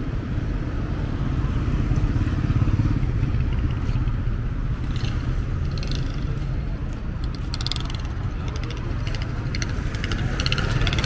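Busy street traffic: a steady low rumble of passing vehicle engines, louder about two seconds in, with short bursts of rattling clatter from about halfway through.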